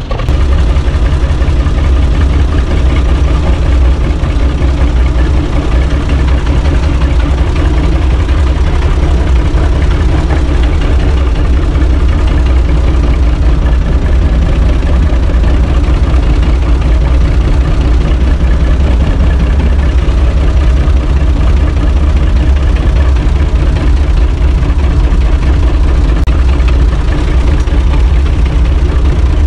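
UTB Universal 445 DT tractor's three-cylinder diesel engine running steadily, heard from inside the cab, loud and deep with no change in pitch.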